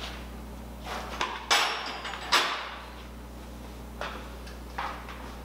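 Hand tools knocking and clunking against metal in a car's engine bay: a few separate knocks, the two loudest about a second apart near the middle, each ringing on briefly, over a steady low hum.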